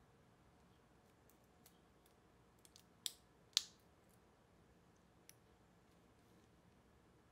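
Metal clasp of a black mesh watch band being closed: a few faint ticks, then two sharp clicks about half a second apart as it snaps shut, and one more faint click later.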